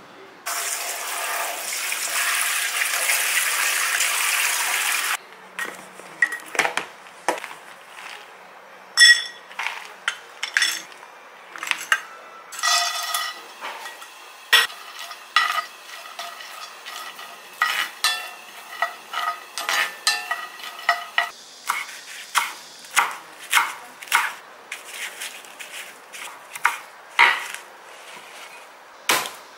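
A steady hiss for about the first five seconds, cutting off suddenly, then a long run of clinks and taps of utensils against dishes, some with a short ring.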